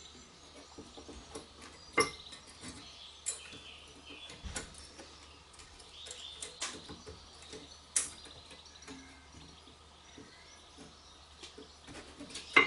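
A new rear brake pad being worked into the caliper bracket of a Hyundai Santa Fe: scattered metal clicks and taps as it seats against the bracket, the sharpest about two, eight and twelve and a half seconds in, over a faint low hum.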